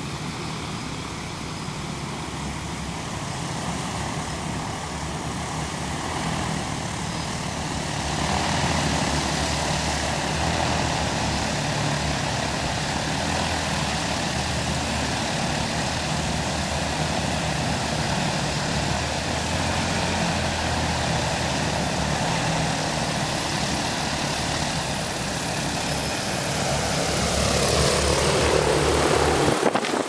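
Steady drone of an engine, with a low hum under a wider noise. It gets louder about a quarter of the way in and again near the end, then cuts off suddenly.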